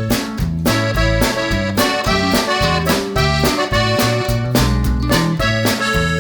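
Background music with a steady beat over a moving bass line.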